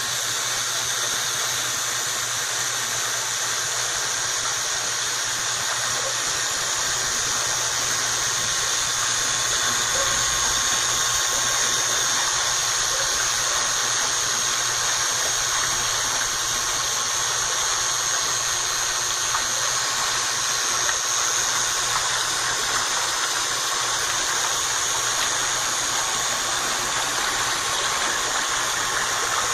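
A washer's pump running steadily with a continuous water hiss and a low hum, a sound the title puts down to cavitation.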